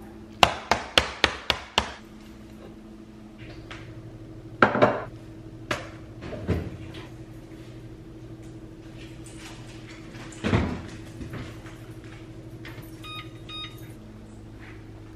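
Kitchen clatter while baking: a quick run of six sharp knocks, about four a second, then a few scattered clunks and thuds. Near the end comes a short run of electronic appliance beeps, with a steady low appliance hum throughout.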